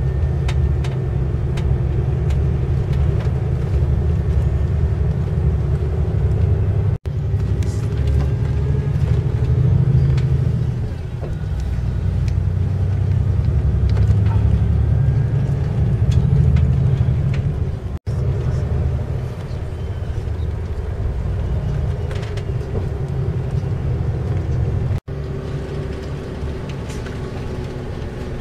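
Engine and road noise of a tour bus heard from inside the cabin: a steady low rumble, broken three times by a brief cut-out where the recording is spliced.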